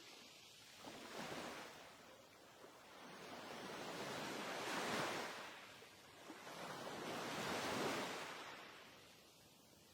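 Faint rushing noise that swells and fades in slow waves, three times, loudest about halfway through and again near the end.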